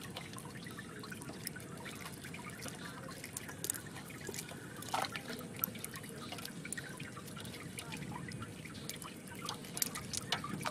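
Hands rummaging through a basin heaped with small wet fish, giving a steady run of soft wet clicks and slithering, with a few sharper clicks now and then.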